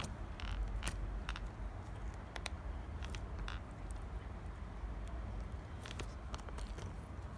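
Hands squeezing and stretching a chewy slime, making small irregular clicks and pops.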